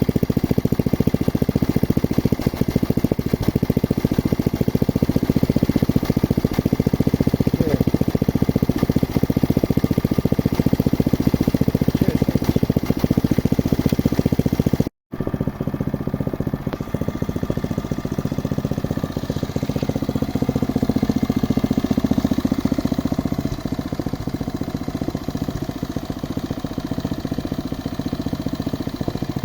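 Geological exploration drilling rig running steadily with a continuous mechanical engine noise. It cuts out for a moment about halfway, then resumes a little quieter.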